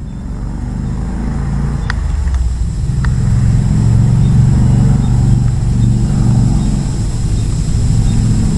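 A loud, steady low rumble that swells over the first few seconds and then holds, with a couple of faint clicks in the first few seconds.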